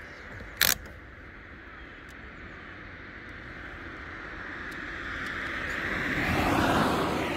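A motor vehicle passing, its noise swelling over a few seconds, peaking near the end and starting to fade, over a steady hiss of wind and rolling noise. There is one short sharp knock just under a second in.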